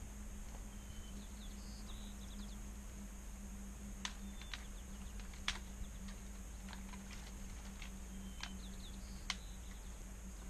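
Scattered sharp snaps of wood and twigs, about seven of them from a little before halfway on, with a few faint high chirps of a small bird and a steady faint hum underneath.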